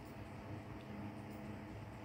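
Faint steady low hum: room tone, with no distinct sound events.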